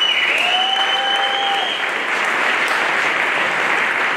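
Audience applause, steady throughout. A long high whistle and a held cheer ride over it in the first couple of seconds.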